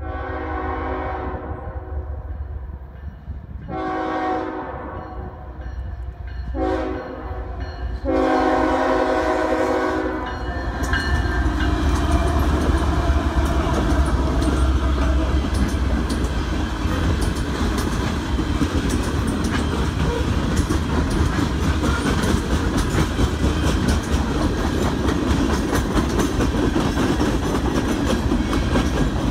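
Freight locomotive horn sounding the grade-crossing signal, long, long, short, long. Then the lead GE diesels, an ES44AH and a CW44AH, run past, followed by a heavy rumble of freight cars with wheels clacking over the rail joints.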